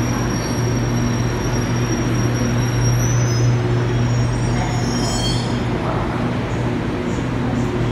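Shanghai Metro Line 1 01A05-type train pulling out of the station: a steady low hum under high-pitched whine tones, which waver and slide down in pitch about three to five seconds in as the train draws away.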